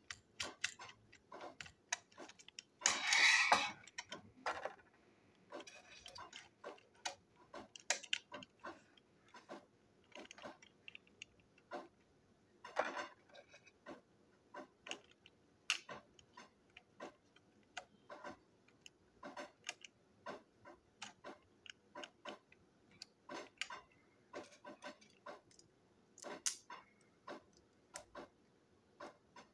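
Irregular small clicks and taps of a Plarail Caitlin toy locomotive's plastic chassis and parts being handled and screwed together with a small screwdriver. A louder scraping rustle comes about three seconds in.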